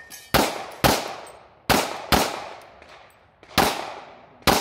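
Six pistol shots from a Glock 22 in .40 S&W, fired roughly in pairs, each followed by a fading echo.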